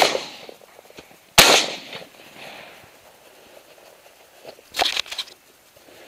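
Two shotgun shots fired at a flying pigeon: one at the very start and a second about a second and a half later, each echoing away. Near the end, a short run of clicks and rustling.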